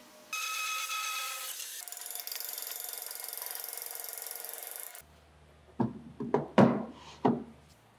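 Sandpaper rasping over a carved wooden seat for about five seconds. Then four or five hollow wooden knocks as the seat is set down into the wooden car body.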